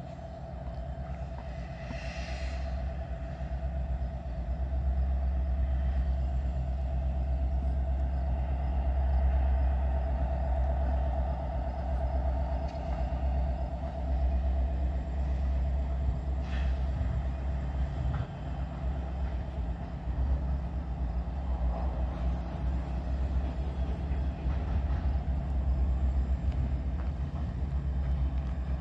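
Diesel freight locomotives, a CN SD70M-2 leading, running steadily with a deep engine rumble and a steady whine. The rumble grows louder over the first few seconds, then holds, with a few brief clicks.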